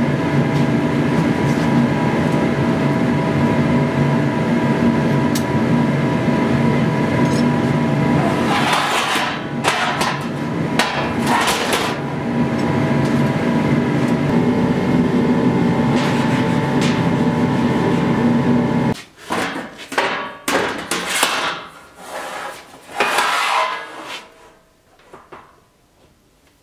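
A steady, loud mechanical roar with a held hum of several tones, which cuts off suddenly about 19 seconds in. After it come several metal knocks and scrapes from a steel lid being moved on a steel trough of granules.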